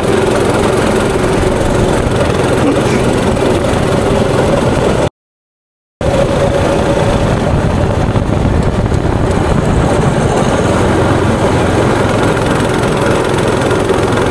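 Go-kart engine running steadily at speed, heard from the driver's seat. The sound cuts out completely for about a second, about five seconds in.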